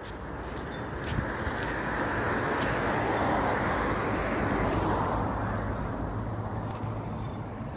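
A road vehicle passing on the street: tyre and engine noise swells over a few seconds, peaks in the middle, then fades away.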